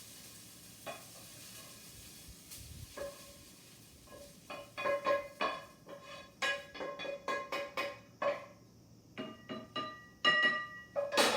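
Background piano music: after a few seconds of faint low noise, a run of short, bright piano notes begins about four and a half seconds in and grows louder toward the end.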